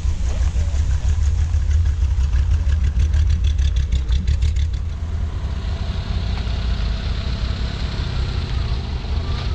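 C3 Chevrolet Corvette's V8 running with a low, loud exhaust rumble as the car drives slowly past and away over gravel. About five seconds in the sound turns to a steadier hiss as a second older car rolls by.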